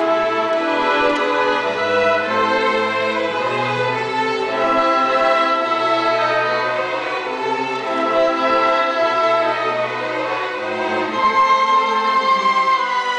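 Youth orchestra playing, violins leading over cellos and other bowed strings in long held notes with a sustained low bass line beneath.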